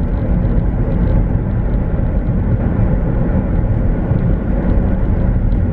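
Steady road and engine noise inside a moving car's cabin, an even rumble heavy in the low end.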